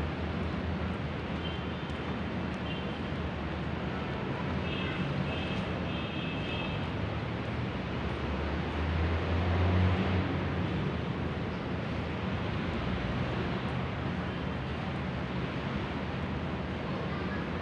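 City ambience: a steady hum of distant traffic, swelling briefly as a vehicle passes about halfway through.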